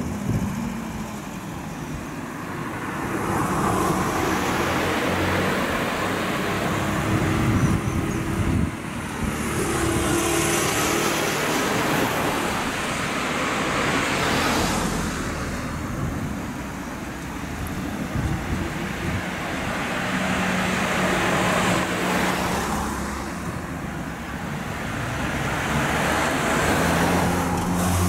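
Road traffic passing: a string of motor vehicles going by one after another, each swelling and fading over a few seconds over a steady low rumble.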